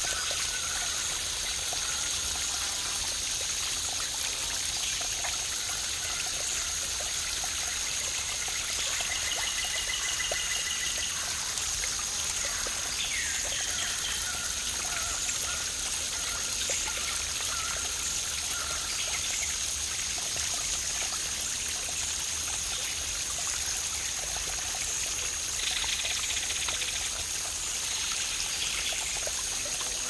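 Waterfall: a steady rush of water falling over rock, even and unchanging, with a thin steady high tone running underneath.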